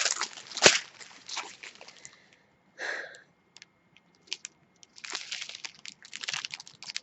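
Small plastic drill bags of a diamond painting kit crinkling and rustling as they are handled, in two spells with a short breath-like sound and a quiet gap between.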